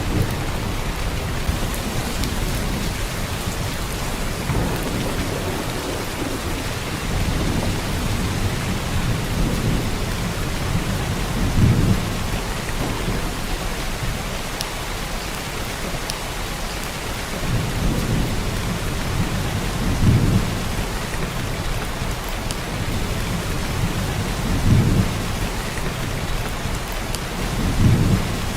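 Heavy downpour of rain: a steady dense hiss of rain on surfaces, with low rumbles swelling up several times.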